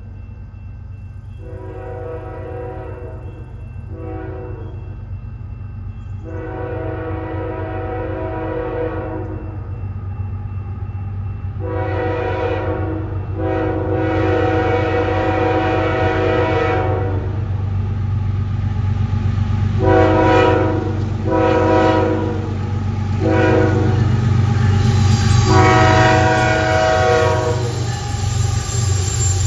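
Horn of a Canadian National freight train's lead diesel locomotive sounding about nine chord blasts, some long and some short, which the uploader takes as a horn salute. Under the horn, the low rumble of the two diesel locomotives grows steadily louder as they come in, and they are passing close by near the end.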